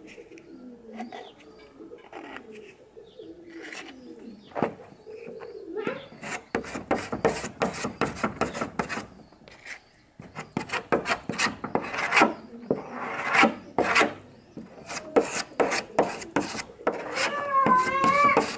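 Metal putty knife scraping and spreading a thick paste of sawdust and wood glue into cracks in a wooden door panel. The quick, repeated scraping strokes start about six seconds in, break off briefly near ten seconds, then carry on.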